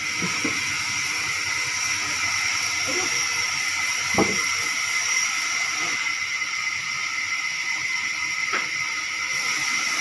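Sawmill machinery running with a steady hiss and a constant high whine, with one knock about four seconds in and a sharp click near the end.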